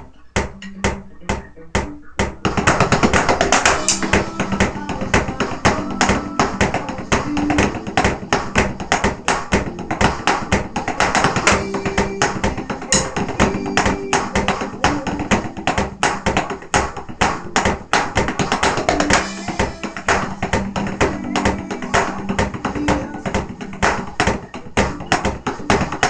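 Electronic drum kit played along with a backing song. Rhythmic stick hits begin at once, and the full band comes in about two seconds in.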